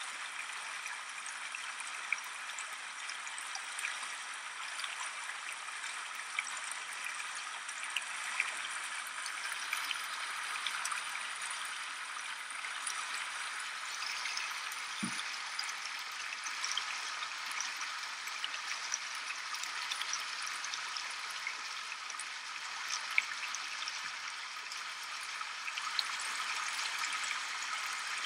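Shallow river water rushing steadily, with small splashes ticking through it; a single low thump about halfway through.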